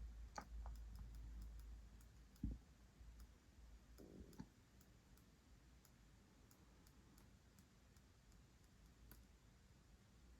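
Faint, irregular oscillating clicking, about two to three clicks a second, from the IcePower 300AS1 amplifier module of a Kemper Power Kabinet that is switched off. The clicking goes on as its supply capacitor drains, a fault the unit shows whenever it is powered off. A single low thump comes about two and a half seconds in.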